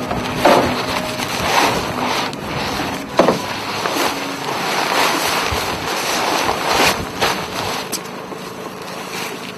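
Wind buffeting the microphone over rushing water, the noise swelling and fading every second or so with a few sharper gusts.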